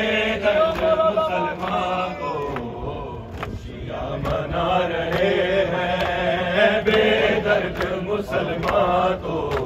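A group of men chanting a Urdu nauha, a mourning lament for Imam Ali's martyrdom, in unison. Sharp chest-beating (matam) slaps keep a steady beat under the voices. The chanting dips for about a second around the middle.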